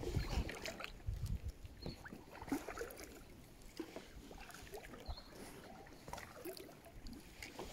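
Kayak paddle dipping into the river in irregular strokes, with light splashes and drips of water off the blades. A low rumble in the first second or so.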